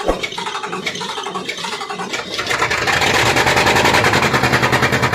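Isuzu 8PE diesel engine being cranked with slow, even strokes, then catching about halfway through and running louder with a fast, even beat. The engine is hard to start.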